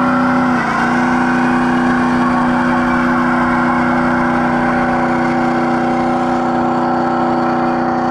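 Stock Ford Super Duty pickup's 6.0-litre Power Stroke diesel V8 held at high revs in a burnout, a steady engine note with the rear tires spinning, dipping slightly in pitch about half a second in.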